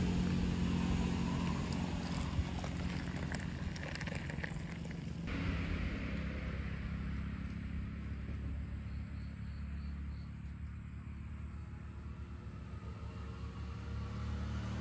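Steady low rumble of a running car engine. The higher hiss drops away suddenly about five seconds in.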